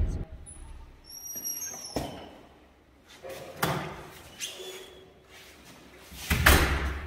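Apartment front door with a digital door lock: short high electronic beeps from the lock about a second in, a latch click, then handling noises as the door opens and a long bag is carried through, and a loud heavy thud near the end.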